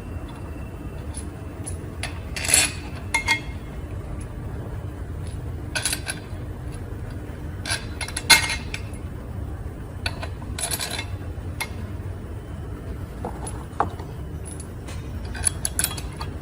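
Metal clinks, taps and short scrapes of tools and steel caliper parts being handled as the caliper cover and its gasket are fitted, over a steady low workshop hum.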